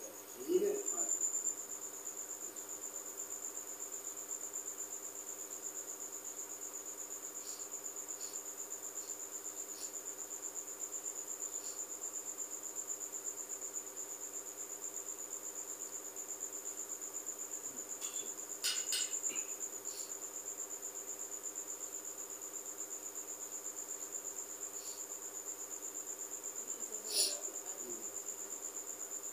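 A cricket chirping in a continuous high, fast-pulsing trill. A few brief soft rustles or knocks come through near the start, about two-thirds of the way in and near the end.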